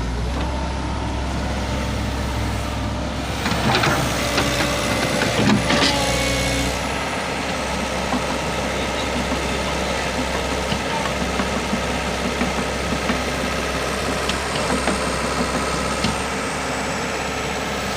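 Sumitomo hydraulic excavator running steadily, with a cluster of metallic clanks about four to six seconds in. The low engine note changes and drops away about seven seconds in.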